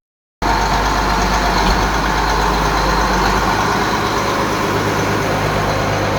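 Tractor engine running steadily, cutting in suddenly about half a second in.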